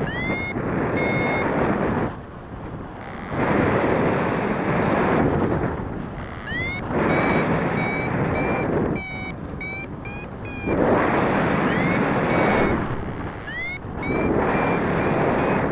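Wind buffeting the microphone in gusts, over the repeated short beeps of a paraglider's variometer. The beeps come in runs, each starting with a quick upward chirp, and edge slightly higher in pitch, the vario's signal that the wing is climbing in lift.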